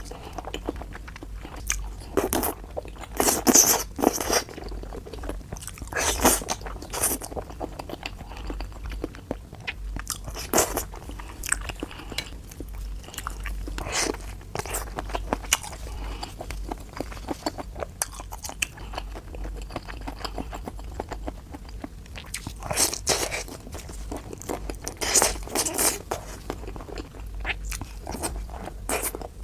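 Close-miked eating of seafood: bites and crunches with chewing in between. A handful of louder crunches stand out, several in the first few seconds and a pair near the end.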